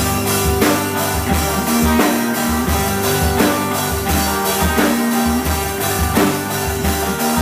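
Rock band playing live in an instrumental passage: a drum kit keeping a steady beat, about one and a half hits a second, under bass and electric guitar.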